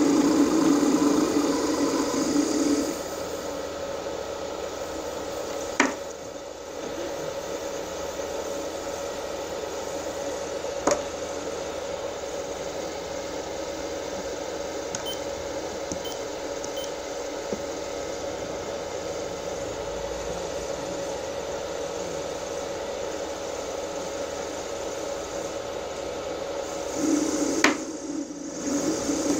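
Small three-phase induction motor driven by a Mitsubishi A700 inverter under sensorless vector torque control, giving a steady electrical whine. It is louder with a lower hum for the first few seconds and again near the end, while the shaft is held by hand against the motor's torque. A couple of short clicks come in between.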